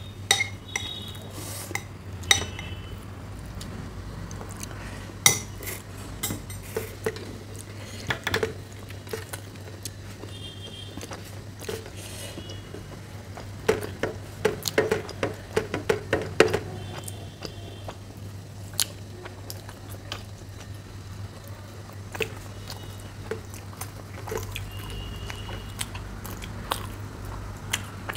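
Eating by hand from stainless steel plates: fingers tearing puri and scooping curry make scattered clicks and scrapes against the metal, with chewing, and a busier run of clicks about halfway through. A steady low hum runs underneath.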